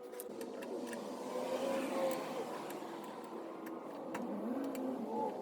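A small motor whirring steadily, its pitch drifting up and down.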